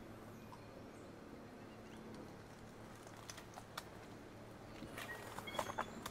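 Quiet New Zealand bush, with a few faint crackles in the undergrowth. From about five seconds in comes a quick run of louder snaps and rustles, along with a few short, high bird chirps.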